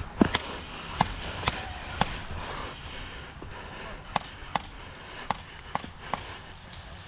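Airsoft gunfire during a game: a dozen or so sharp cracks at irregular intervals, a few close together near the start, a short lull, then more, over a steady background rustle.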